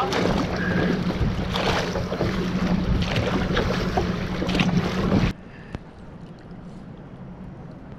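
Water rushing past an outrigger canoe riding a wave, with wind on the microphone and a few paddle splashes. About five seconds in it cuts off suddenly to a much quieter wash of open water.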